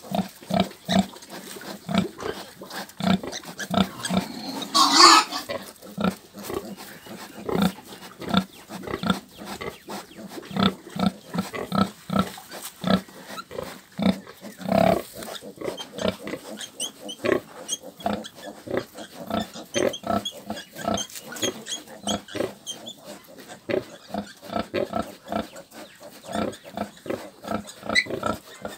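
A sow grunting steadily in short, low, regular grunts, about two a second, while her piglets suckle: the rhythmic nursing grunts of a sow feeding her litter. A piglet squeals briefly about five seconds in.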